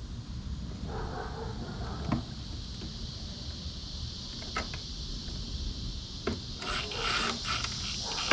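Hand rubbing and scraping of parts being fitted, with scattered small clicks, a sharp knock at the end, and a steady high hiss throughout.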